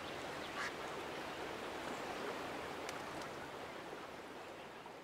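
Steady rush of flowing water from a mill pond's dam spillway, fading out near the end.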